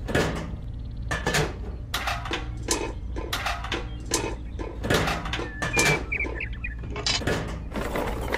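Small toy parts being picked up and set down: a run of light clicks and clatters, about one or two a second, over a steady low hum.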